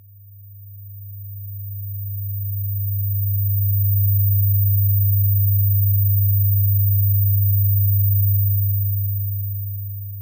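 A single low, steady electronic hum, one pure tone, that fades in over about four seconds, holds, and fades out near the end.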